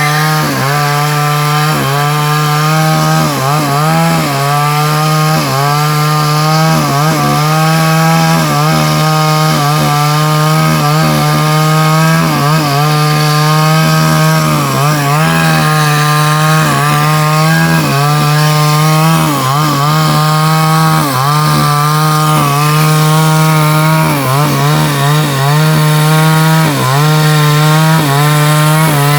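Two-stroke chainsaw running at high revs and cutting wood. The engine pitch dips briefly and repeatedly, about once a second, as the chain takes load in the cut.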